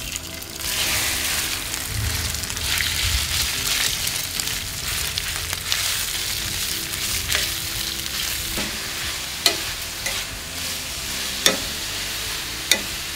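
Chopped, seasoned lobster meat sizzling as it hits hot olive oil in a stainless steel pan and keeps frying. It is stirred with a spatula, which gives a few sharp clicks and scrapes against the pan in the second half.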